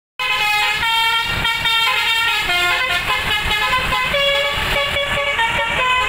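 A tour coach's multi-tone 'telolet' horn plays a quick tune, its notes stepping up and down every fraction of a second. Vehicle noise runs underneath.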